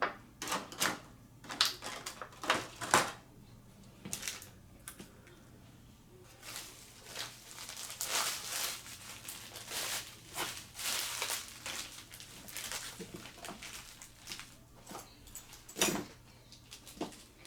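Hands handling small plastic figures and packaging: scattered clicks and taps, with a stretch of rustling and crinkling in the middle.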